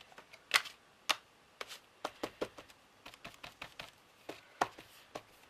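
A small ink pad being dabbed against a paper tab on a tabletop while inking its edges: irregular light taps and clicks, several a second, with a sharper tap about half a second in and another near the end.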